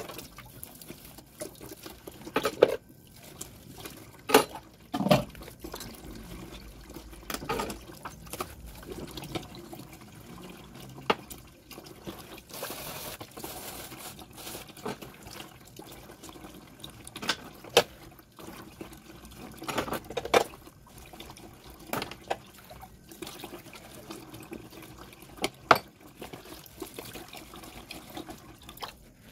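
Water running from a tap onto dishes being washed by hand, with scattered clinks and knocks of plates and pots against each other.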